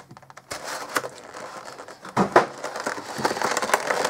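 Clear plastic blister tray of a Pokémon card box crinkling and clicking as it is handled and pulled out. Irregular sharp crackles throughout, the loudest about two seconds in.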